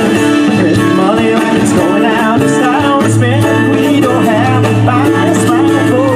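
Live acoustic rock band playing a country- and bluegrass-tinged song: strummed acoustic guitar, bass and drums, with a wavering lead melody over them.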